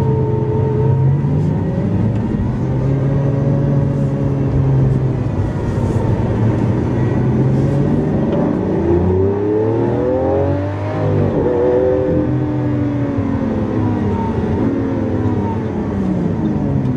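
Lamborghini Aventador LP700-4's 6.5-litre V12 running under way, its pitch rising and falling. A long climb in pitch drops back sharply about two-thirds of the way through.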